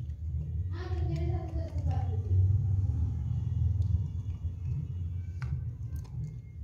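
A steady low rumble, with a brief distant voice gliding downward about a second in. A few light clicks near the end come from a small plastic switch housing being handled.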